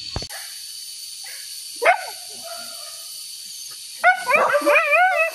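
Hunting dog giving one short yelp, then from about four seconds in a run of high, wavering whines and yelps.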